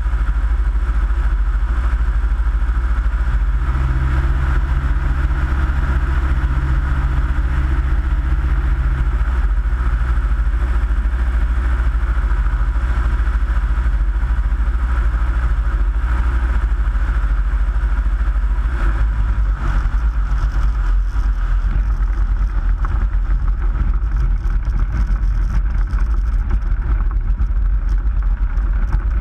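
Light aircraft engine and propeller running steadily at cruise, heard from a wing-mounted camera with heavy wind rush. About two-thirds through, the engine note drops and the wind noise eases as the ultralight comes in to land and rolls on grass.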